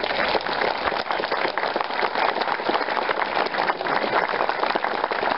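Crowd applauding: steady, dense clapping from many hands.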